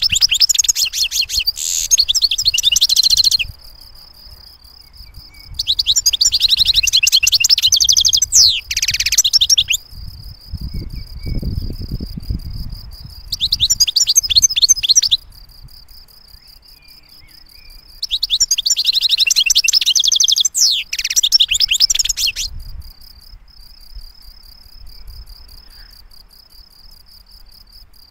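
European goldfinch singing: four bursts of fast, twittering song, each a few seconds long, with pauses between. A steady, high-pitched pulsing trill runs underneath the whole time.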